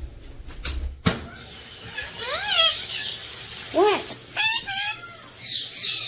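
Ringneck parakeets chattering in high, talking voices, with rising-and-falling squawks; one says "What?" about four seconds in. A couple of light knocks come in the first second.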